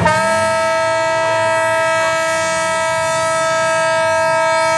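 A horn sounding one long, steady blast at a single held pitch, setting in abruptly.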